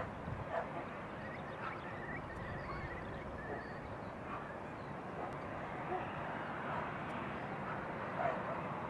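Distant jet engine noise of an Airbus A310-304 at takeoff power on its takeoff roll, a steady rumble slowly building. A few short animal calls and a bird's trill sound over it.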